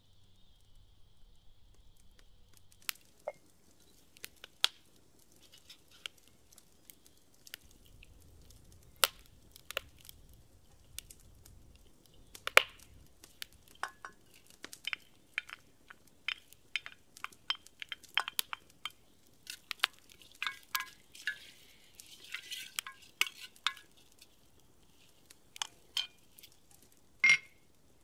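Scattered clinks, taps and knocks of a wooden spoon against a ceramic plate and a black ceramic cooking pot as chopped onion is tipped in. The clatter is densest in the second half, with a louder clink near the end as the lid goes on.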